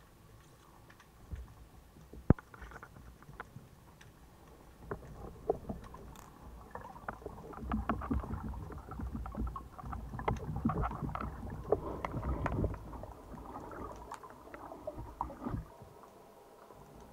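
Salvimar Hero 105 band speargun firing underwater with a single sharp snap about two seconds in. It is followed by a long stretch of crackling, bubbling water noise with many small clicks, which dies down near the end.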